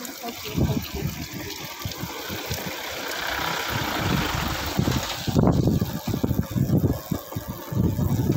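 Wind buffeting the microphone in uneven low rumbling gusts, growing stronger about five seconds in.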